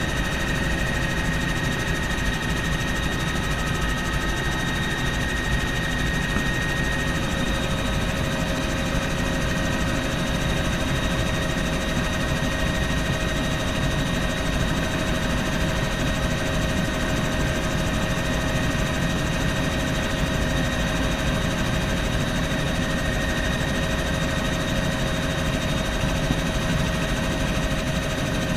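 Bell helicopter in flight heard from inside the cabin: a steady engine and rotor drone with a few constant whines over it.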